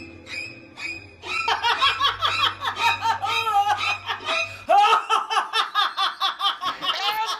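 A woman laughing hard and without a break, in quick high-pitched peals that start about a second in.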